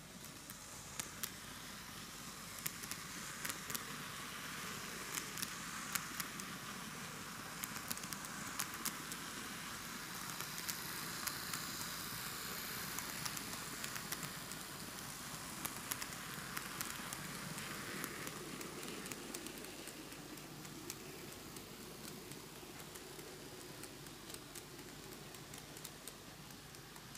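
A six-car N gauge model diesel railcar train running past on model track: a steady rolling and motor whir from its wheels and mechanism, with frequent small clicks as the wheels run over the track. It grows louder toward the middle as the train comes close and fades again toward the end.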